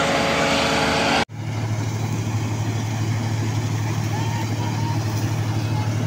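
Laverda combine harvester running with a steady mechanical drone. About a second in the sound cuts off abruptly and switches to another combine running, a steady deep hum.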